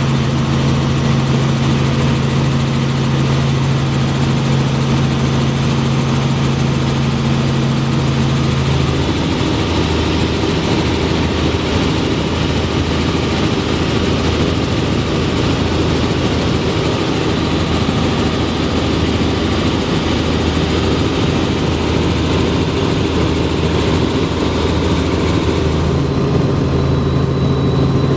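Tour helicopter's rotor and engine noise, heard from on board: a loud, steady drone with low tones. The tones shift about nine seconds in and return near the end.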